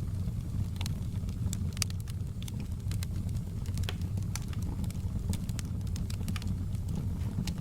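Wood fire burning in a fireplace: a steady low rumble of the flames with frequent sharp crackles and pops from the burning logs.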